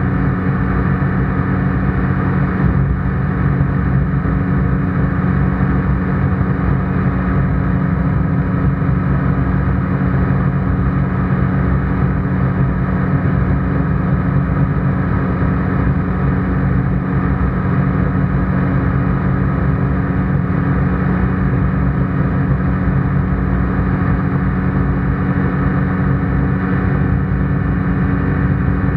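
ICP Bingo ultralight's engine and propeller running steadily in flight, a constant drone heard inside the cockpit.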